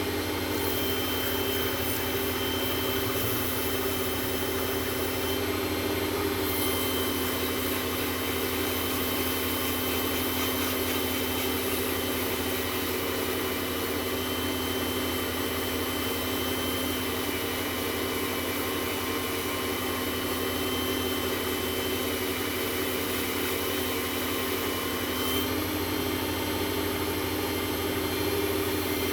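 WEN lathe's motor running steadily with a low hum and a thin high whine, spinning an acrylic pen blank while it is sanded.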